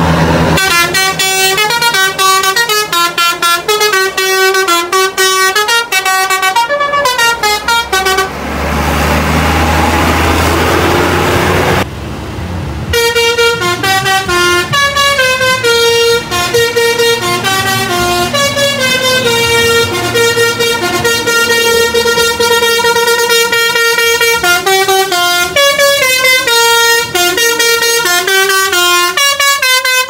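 Tour-bus 'telolet basuri' musical horns playing tunes in quick runs of stepping notes. The tune breaks off about eight seconds in, leaving a low engine rumble with a hiss, and a second horn tune starts about thirteen seconds in and plays on.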